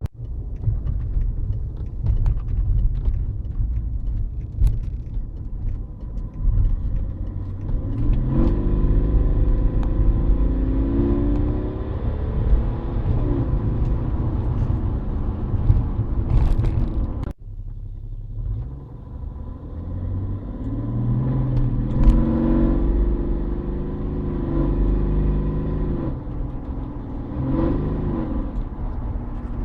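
BMW E60 530d's 3.0-litre straight-six diesel running with a heavy low rumble, its engine tones rising and wavering as the revs climb. The booming, V8-like noise around 2500 to 3000 rpm comes from a broken flywheel. The sound breaks off suddenly about two-thirds of the way through, then picks up again.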